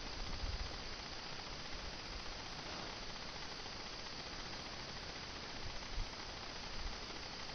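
Steady hiss of a camcorder microphone's background noise, with a few soft low bumps about half a second in and again near the end.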